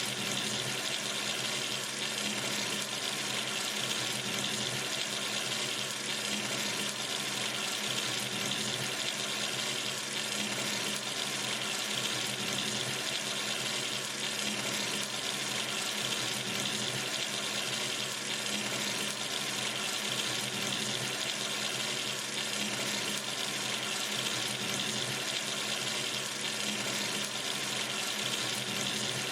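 Water running steadily from a sink tap into the basin, an even, unbroken splashing hiss.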